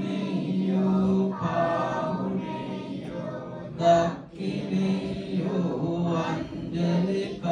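A group of voices chanting together in unison, holding long drawn-out notes: congregational Buddhist devotional chanting.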